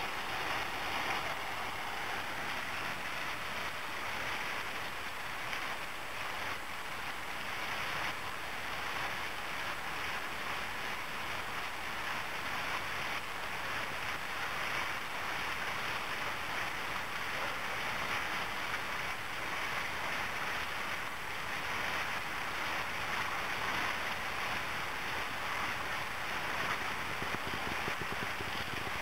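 Steady rain falling, an even hiss that holds without letup.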